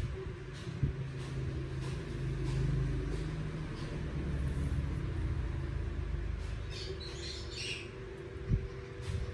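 Steady low rumble of background traffic that swells briefly, with a short burst of bird chirps about seven seconds in.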